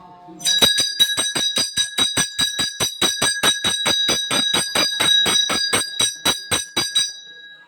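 Temple bell rung rapidly and steadily, about five strokes a second for some six seconds, then left to ring out.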